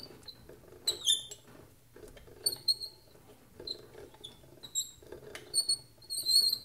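PM-25 mill head moving along its dovetail column, squeaking: a string of irregular, short, high-pitched squeaks over a soft low grinding rustle.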